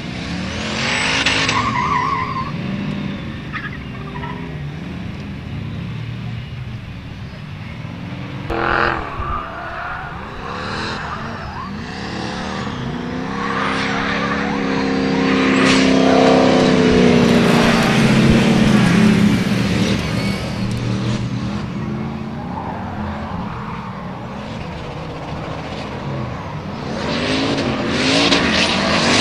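Formula offroad buggy and drift cars sliding in a pack, their engines revving up and down with tyre squeal. The engine sound swells to its loudest a little past halfway as the group passes.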